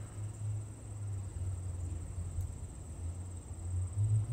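Outdoor ambience: a steady low rumble that swells and dips, with a thin, high, steady insect drone above it.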